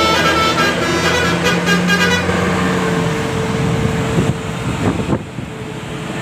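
Bus musical multi-tone "telolet" air horn playing a quick run of notes, stopping about two seconds in, followed by vehicle and road noise.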